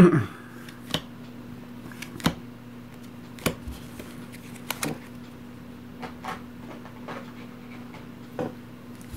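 Game cards laid down on a table one at a time, a short light tap about every second, over a faint steady hum.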